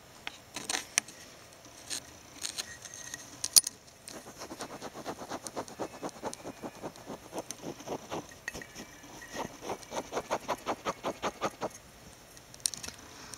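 Pet rats scratching and rustling in the bedding of a duvet and pillows: a few sharp clicks, then a long run of quick scratches, several a second, that stops about a second before the end.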